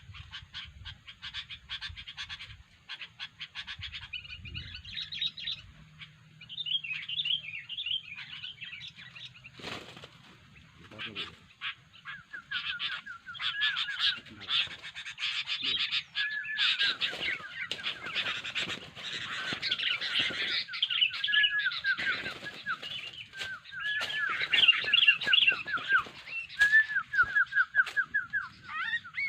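Sooty-headed bulbul calling in fast chattering runs of short notes, growing denser and louder about halfway through, with a repeated dipping note underneath.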